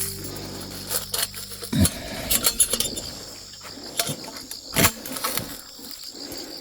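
Insects chirping in a steady high haze, with scattered sharp clicks and clinks, the loudest near two, four and five seconds in. Background music plays for the first couple of seconds and then stops.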